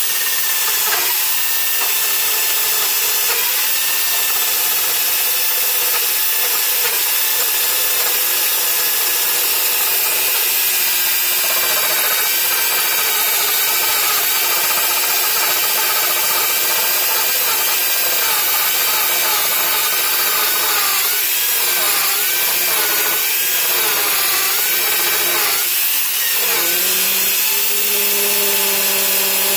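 Corded electric drill driving a hole saw into an old timber board: the motor whines steadily as the saw's teeth grind through the wood. Its pitch wavers and dips under load for a few seconds past the middle, then settles into a steadier tone near the end.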